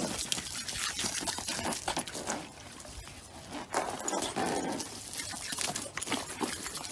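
A garden hose spraying a stream of water into an inflatable paddling pool, with continuous splashing and pattering as dogs play in the water and snap at the stream.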